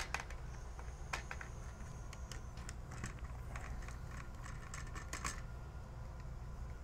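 Scattered light clicks and small scrapes of a screwdriver loosening the screws that hold a cellular communicator module onto an alarm panel's circuit board, over a low steady hum.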